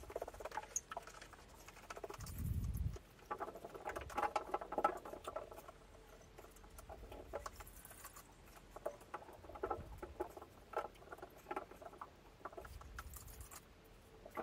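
Faint patter, rustling and small squeaks of hands working a wet cleaning cloth at a plastic basin, with a dull low thump about two seconds in.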